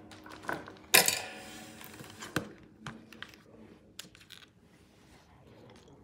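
Small hard objects clicking and clinking on a tabletop as hands rummage through nail-art samples. The loudest is a sharp clink about a second in that rings briefly; scattered lighter taps follow and thin out toward the end.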